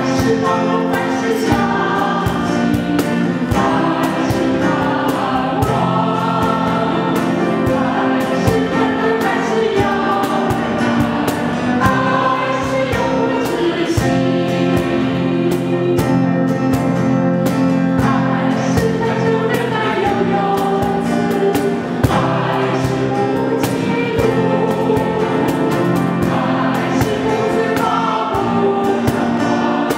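Church choir singing a Chinese-language hymn, accompanied by piano and acoustic guitar, at a steady level throughout.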